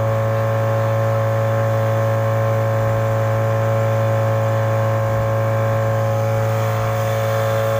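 Speedboat's outboard motor running at a steady cruising speed: an even, unchanging drone with a strong low hum.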